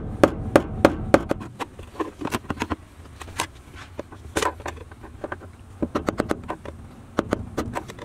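Hammer blows on a long metal bar held against the metal lock ring of a 2017 Nissan Sentra's fuel pump, driving the ring counterclockwise to loosen it. Sharp strikes come about three a second in uneven runs.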